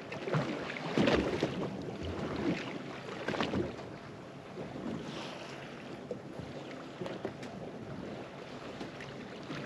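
Wind buffeting the microphone over open sea, with waves lapping and slapping against a boat's hull, the slaps loudest in the first few seconds.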